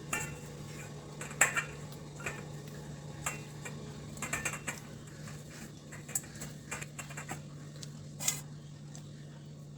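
A spoon and dishes clicking and tapping against a bowl and baking tin while batter is topped with raisins and chocolate chips: scattered light taps, with a sharper knock about eight seconds in, over a steady low hum.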